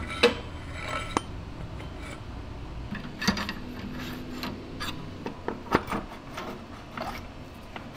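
Steel drive parts (a sprocket, belt pulley and shaft) being fitted together by hand, giving scattered sharp metal clinks and knocks.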